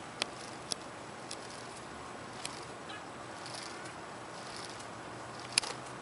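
Faint steady outdoor hiss broken by a handful of short sharp clicks, the loudest near the end, with two brief faint high rustles in between.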